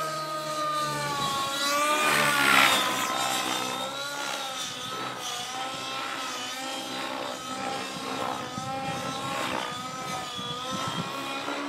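Radio-controlled model helicopter in flight, its motor and rotors whining steadily with the pitch rising and falling as it manoeuvres.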